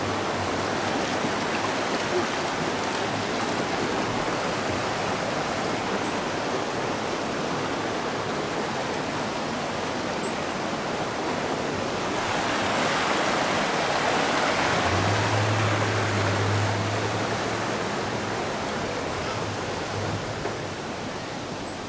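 Shallow river water rushing steadily over rocks, swelling a little past the middle and easing off near the end, with a low hum joining briefly.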